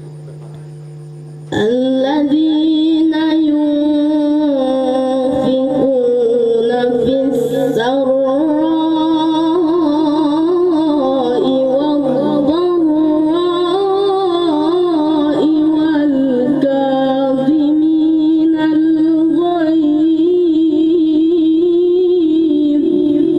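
A boy chanting Quranic recitation (tilawah) in a melodic style into a microphone over a sound system. It is one long ornamented phrase that starts about a second and a half in and is held for over twenty seconds, with a steady low hum underneath.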